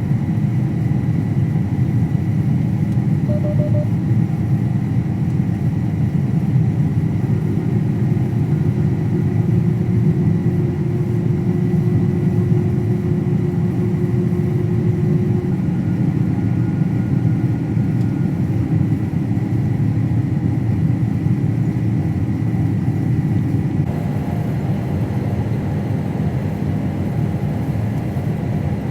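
Combine harvester running, heard from inside the cab as a steady, dense low rumble with a faint steady whine above it. A short high beep sounds about three seconds in.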